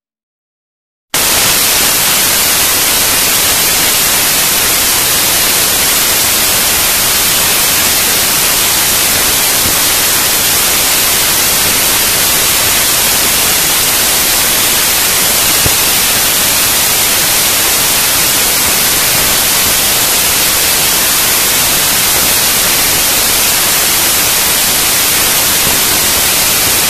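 Loud, steady static hiss like white noise, starting about a second in after a brief dead silence, even and unchanging, with no engine or road sound picked out in it.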